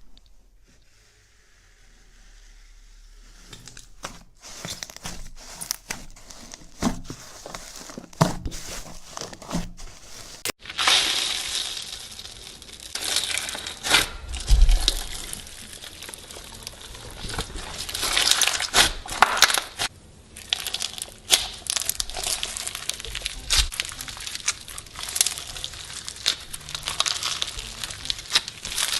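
Slime being squished and worked by hand: sparse sticky clicks at first, then, after a cut about ten seconds in, dense crackling with many sharp pops.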